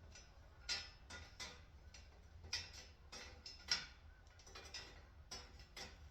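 Light metallic clicks and taps of Dodge 318 V8 valve lifters being handled: pulled from the lifter bores and set into the holes of a drilled steel plate. About a dozen irregular clicks, the loudest a little under four seconds in.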